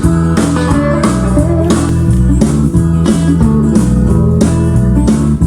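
Instrumental rock song with guitar and bass over a steady beat, played back loud through a vintage 1970s stereo receiver and loudspeakers as a sound test.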